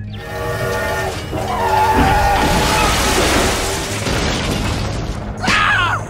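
Edited sound effects over background music: a long, loud, noisy crash-and-rumble swelling through the middle seconds, with steady horn-like tones at the start and a short sliding tone near the end.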